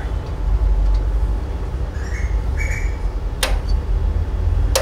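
Steady low background rumble. Over it come a couple of brief squeaks and then two sharp clicks about a second and a half apart, from pliers working on a bundle of CCTV camera cables.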